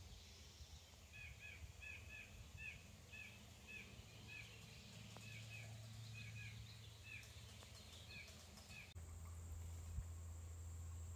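Faint bird calls: a short, downslurred chirp repeated about twice a second for several seconds, over a faint steady low hum. About three quarters of the way through, the calls stop and the low hum becomes abruptly louder.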